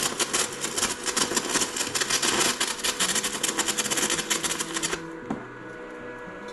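Arc welder crackling steadily as a weld bead is laid, stopping abruptly about five seconds in. A faint steady hum is left after.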